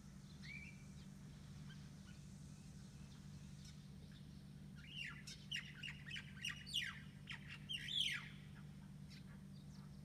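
Crested myna singing alone: a short rising note about half a second in, then from about five seconds a quick run of varied sweeping whistles and squeaks for some three seconds, loudest near the end. The uploader guesses it is the bird practising its courtship song.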